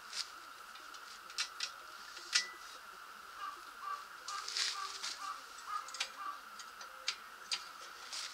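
Scattered light clicks and taps of hands handling and fitting parts on a Robin small engine, over a faint steady high whine; a run of small, faint chirps in the middle.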